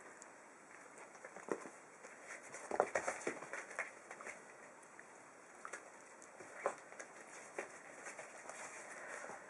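Five-week-old puppies tussling on newspaper: scattered crinkles of the paper and clicks of paws scrabbling on it, busiest around three seconds in.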